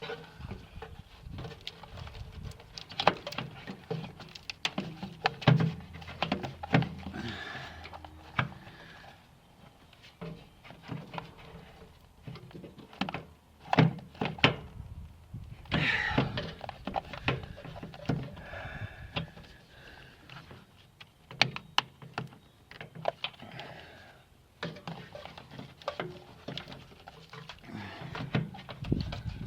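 Irregular knocks, clicks and rattles of hands and tools working loose a car's headlight assembly and front-end parts, with scattered sharper thunks.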